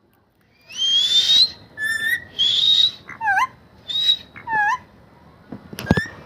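Pet parrot whistling. It gives a long rising whistle, then a run of short whistles and quick dipping chirps, with a few sharp clicks near the end.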